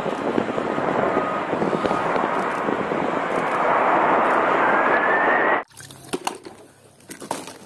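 Jet engines of a Boeing 747 on the runway: a steady roar, with a whine that rises in pitch about four seconds in, cutting off suddenly near the end.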